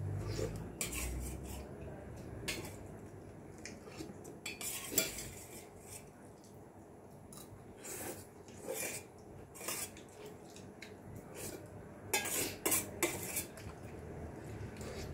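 Metal spoon and fork clinking and scraping against plates and bowls while eating: scattered light clinks every second or so, with a quick cluster of them near the end.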